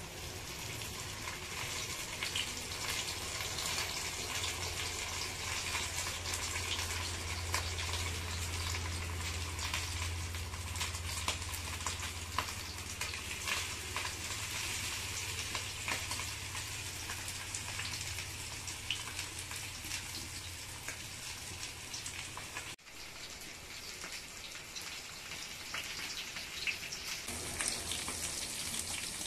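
Rava-coated pomfret shallow-frying in hot oil in a cast iron pan: a steady sizzle with many small crackles and pops.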